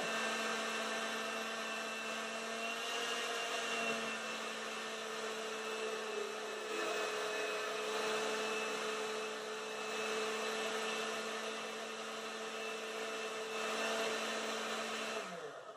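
Countertop blender motor running steadily under load as it blends mayonnaise, an even low hum. Near the end the hum drops in pitch and dies away as the power is cut; the blender's button sticks, so it would not switch off.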